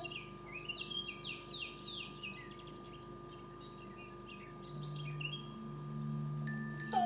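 Birds chirping and twittering in quick, short falling whistles, thickest in the first couple of seconds and again around five seconds in, over a steady hum.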